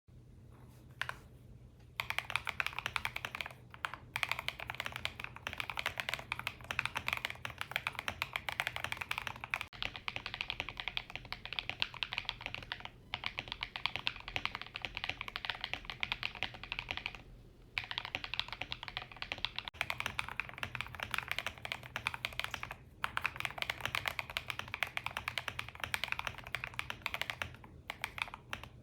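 Fast, continuous typing on an EPOMAKER RT100 mechanical keyboard with stock Gateron Smoothie linear switches: a dense, creamy clacking of keystrokes. It starts about two seconds in and is broken by a few brief pauses.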